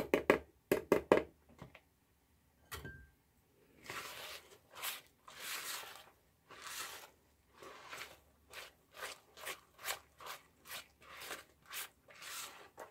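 A spatula stirring thick zucchini bread batter in a mixing bowl, making repeated wet scraping strokes about one or two a second from about four seconds in. A few quick knocks come in the first second or so.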